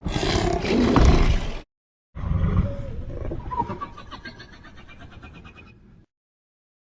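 Two Demogorgon monster roar sound effects. The first is loud and lasts about a second and a half before cutting off abruptly. After a short silence, a second roar fades away over about four seconds into a fast clicking rattle.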